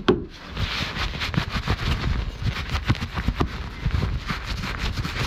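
A cloth rubbing and wiping a small chrome metal bracket held close by: a fast, irregular run of scuffs and little clicks. A single sharp knock comes at the very start.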